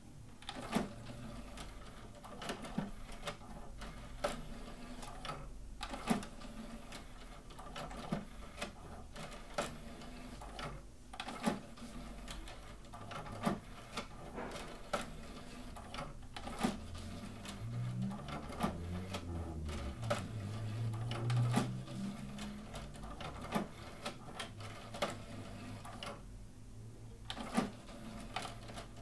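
Nakamichi MB-4s seven-disc MusicBank CD changer's mechanism at work, an irregular string of clicks and clunks as the tray closes and the changer selects among its stacked discs. Partway through, a low motor whir rises and falls.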